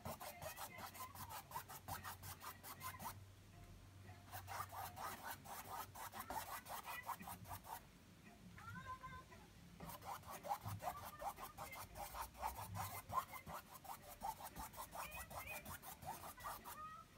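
Stiff-bristled paintbrush scrubbing acrylic paint onto a stretched canvas in quick back-and-forth strokes. The strokes come in three runs, with short pauses about 3 and 8 seconds in.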